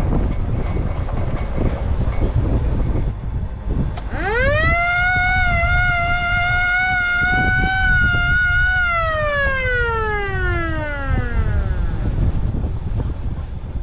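A siren winds up to a steady wail, holds for about four seconds, then slowly winds down, over the low rumble of a pickup driving across the pasture.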